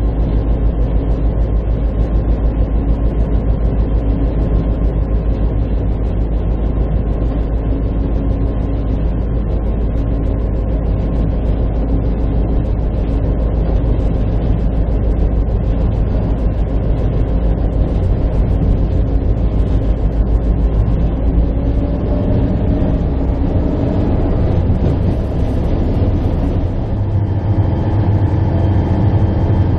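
Diesel locomotive engine running steadily with the train under way, close up from a camera mounted on the locomotive. Near the end the engine's low hum deepens and grows stronger.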